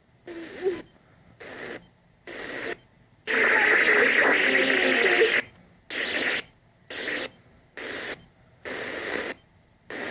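AM radio receiver being tuned across the band, stopping on frequency after frequency: about nine short stretches of static hiss, each cut off by a brief silence. The longest stretch, about three to five seconds in, has a weak station faintly audible under the noise.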